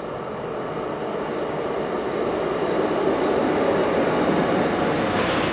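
Electric locomotive-hauled passenger train passing at close range: the steady running noise of the locomotive and coaches rolling on the rails, growing louder through the first few seconds and then holding.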